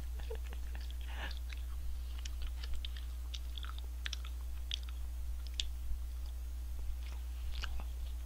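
A person chewing food close to a microphone: scattered small wet mouth clicks and soft crunches over a steady low hum.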